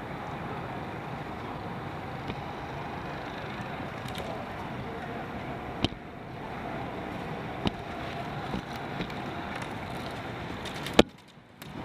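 Airsoft guns firing in scattered single shots, sharp cracks over a steady background din, with one much louder crack near the end.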